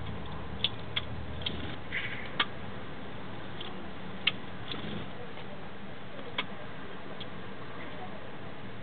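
Great tit pecking at seeds in a seed tray: a scattering of sharp, irregular taps of its beak, over a steady hiss.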